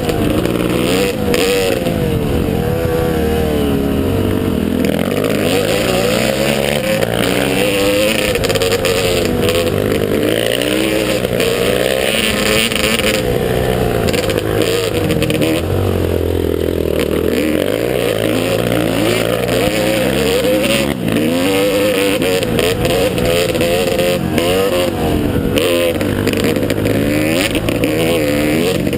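Motocross motorcycle engine running hard, its pitch rising and falling constantly as the throttle opens and closes through the ride.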